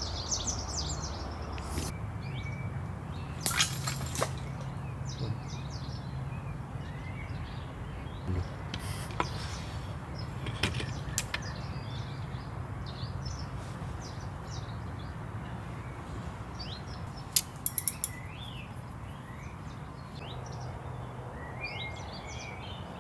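Small birds chirping and singing in many short calls over a steady low hum, with a few sharp clicks.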